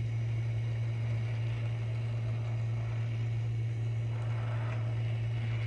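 Oxyacetylene torch flame hissing steadily as it heats a brazed copper joint to free a refrigeration check valve, over a constant low machinery hum.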